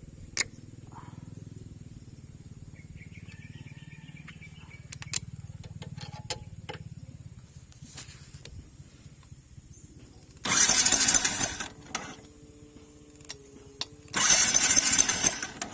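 Yamaha R15 v2's electric starter cranking the 150 cc single-cylinder engine in two short bursts of about a second each, a few seconds apart, without the engine catching. A steady electric hum sounds between and after the bursts, and a few light clicks come earlier. The owner suspects a failed spark plug.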